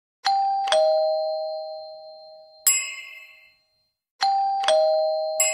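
Two-note ding-dong doorbell chime, a higher note then a lower one, each fading slowly, followed by a short bright ting about two and a half seconds in. The whole pattern starts again near the end.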